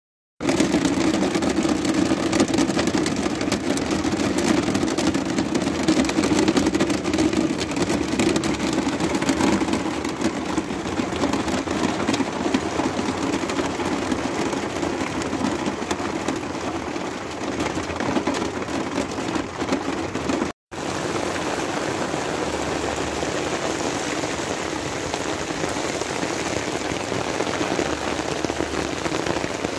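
Heavy rain pelting a camper van, heard from inside the van. After a brief cut about two-thirds of the way through, the steady rain continues.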